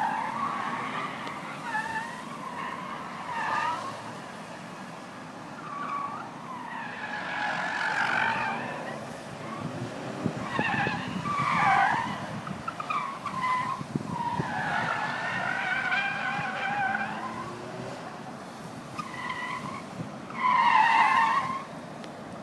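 BMW 3-Series tyres squealing again and again as the cars are thrown hard through tight cone turns, the loudest squeal near the end, with the engines running underneath.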